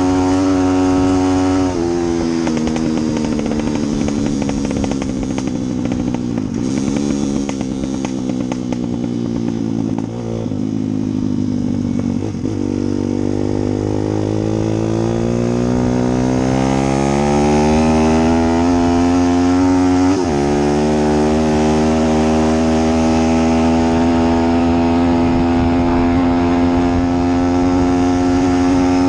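An engine running: its pitch drops slightly, sinks slowly for about ten seconds, then climbs again, breaks sharply about twenty seconds in, and settles back to a steady pitch.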